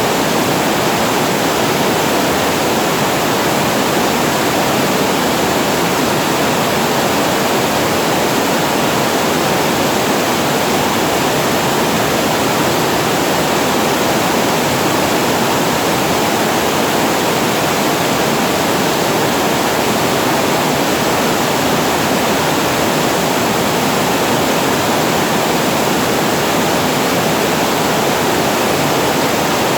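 Water spilling over a reservoir weir and falling below it: a steady, unbroken rush, full in the lower middle range.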